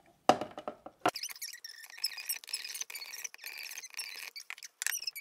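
A clear plastic spray chamber is set down over a bead tray with a clack, followed by a run of high-pitched plastic squeaks as hands work the Pixo Bitz squeeze sprayer on top of it, misting the beads to set their glue.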